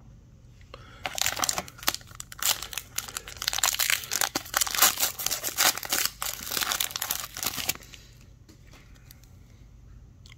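Foil wrapper of an Upper Deck hockey card pack being torn open and crinkled by hand: a dense run of crackling from about a second in until near the end, then it stops, leaving a few faint clicks.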